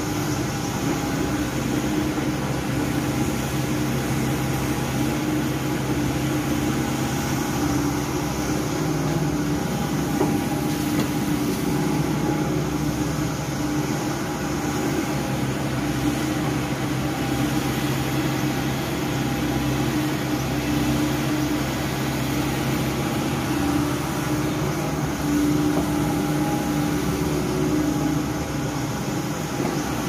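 SANY SY135C tracked excavator's diesel engine and hydraulics running steadily under load as it digs and swings, a constant drone with a few steady tones and little change in level.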